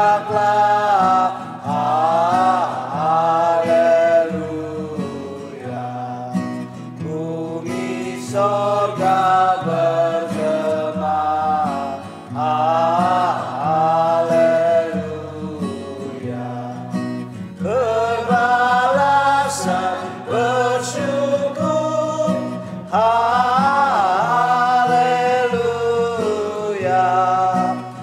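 A small group of singers singing a hymn in phrases of a few seconds each, accompanied by an acoustic guitar.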